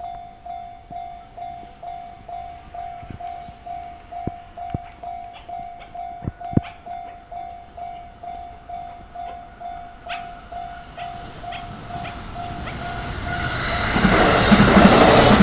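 Japanese level-crossing warning bell ringing a single electronic tone about twice a second. From about 12 s in, an electric train on the Chuo Line approaches, its noise rising and drowning out the bell as it reaches the crossing.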